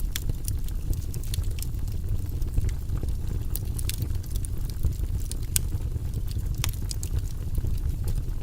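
Fire in a fireplace crackling, with sharp, irregular pops over a low, steady rumble of the flames.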